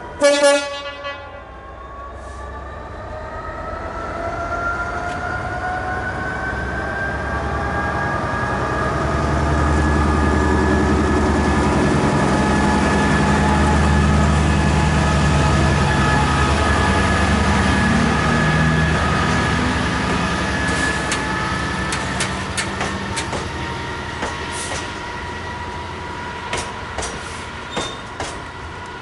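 A Class 66 diesel locomotive sounds a short, loud horn blast, then passes close, its 12-cylinder two-stroke EMD engine note rising and at its loudest as the locomotive goes by. Loaded hopper wagons follow, their wheels clicking sharply over the rail joints in the last seconds.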